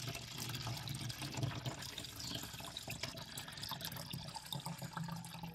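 Antifreeze running steadily from a hose into a plastic bottle as the engine's coolant is pushed out under pump pressure, with a low steady hum underneath.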